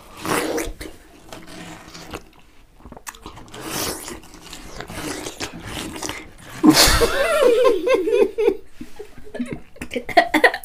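Biting and slurping at watermelon flesh on the rind, then about seven seconds in a sudden loud outburst that runs into wavering laughter.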